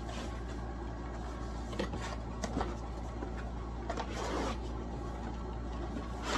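Cardboard shoebox being handled and opened: a few faint scrapes and rubs of the lid and box, the longest about four seconds in, over a steady low hum.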